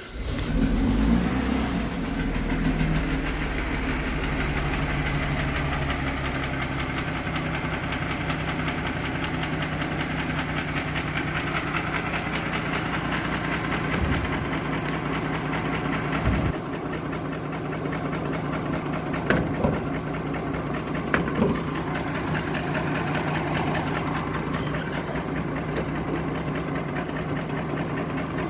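Mercedes-Benz M104 3.2-litre straight-six engine running at idle with a knock, the knock whose cause the mechanic has not yet found. Cylinder one has a burnt piston and almost no compression. A few sharper clicks come through about two-thirds of the way in.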